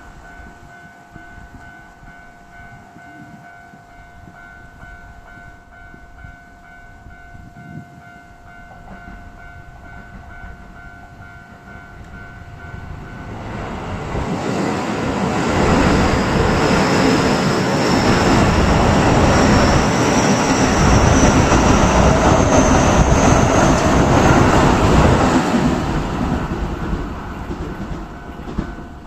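A Keio Line electric train passing over a level crossing. It builds up about twelve seconds in, is loud for around ten seconds with a high, slightly rising whine, then fades. The crossing's warning bell rings steadily before and after, drowned out while the train goes by.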